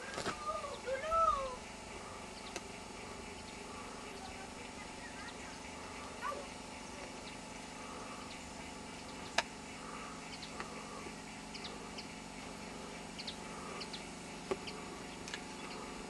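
Two short animal calls that rise and fall in pitch in the first second and a half, then a steady low hum with a few faint scattered clicks and high chirps.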